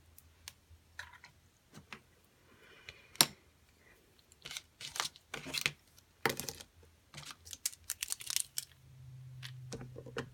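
Clicks, taps and short rattles of a marker being shaken and its tip pressed down repeatedly to get the ink flowing onto the paper, with one sharp tap about three seconds in. A low hum comes in near the end.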